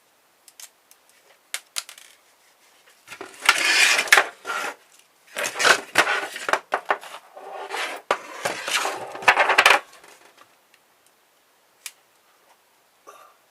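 Small metal parts of a dismantled car stereo clattering and rattling in three bursts of a second or two each, with scattered clicks before and after.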